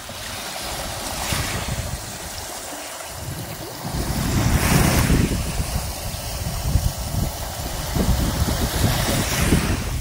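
Small waves lapping and washing up on a sandy shore, the hiss swelling three times as each wave comes in. From about four seconds in, wind buffets the microphone with a low rumble.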